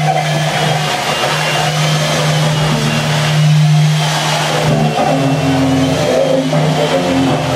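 Petrol chainsaw engine running steadily, its pitch stepping up about five seconds in, mixed with a bowed cello.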